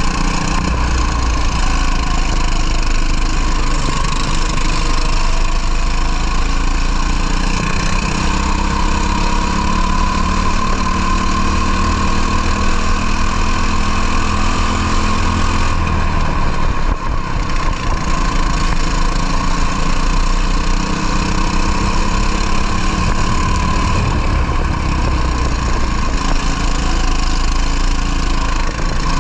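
Racing kart engine running flat out, heard onboard with wind noise, its pitch climbing along the straights; the revs drop off briefly about sixteen seconds in, then build again.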